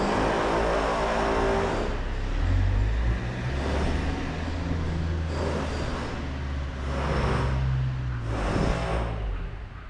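A motor vehicle's engine running with a low, steady hum, joined by soft hissing swells that come back about every second and a half.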